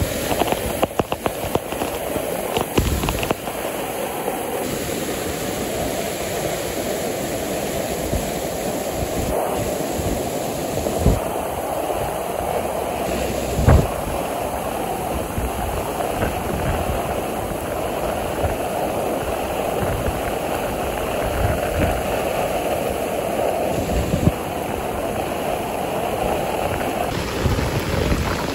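Muddy, rain-swollen stream rushing and churning over rocks and a concrete channel: a steady roar of water. Occasional low thumps, the loudest about halfway through.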